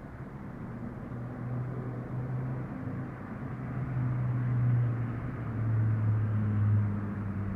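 Room tone with traffic going by outside: a steady low hiss under the low hum of passing vehicles, which swells twice, about four and six seconds in.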